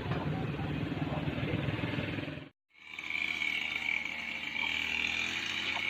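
An engine running with a steady low rhythmic rumble, which cuts off abruptly about two and a half seconds in. It gives way to a steady, high-pitched chorus of frogs croaking.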